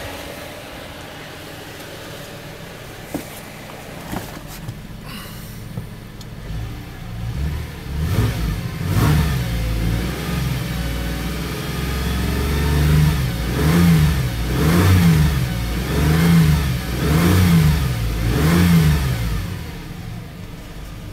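Subaru Outback's 3.0-litre flat-six engine idling, then revved and held up, followed by about six quick throttle blips, each rising and falling, about one a second, before settling back to idle near the end. A few light knocks sound in the first few seconds.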